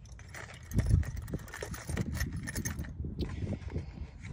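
Steel drill bits and small metal drill boxes clinking and rattling as they are handled in a drawer of a steel machinist's toolbox, with a louder knock about a second in.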